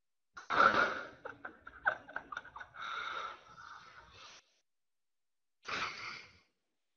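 A man gagging and retching: a loud heave about half a second in, then a run of short choking heaves and a drawn-out wheezing retch. Another heave comes near the end.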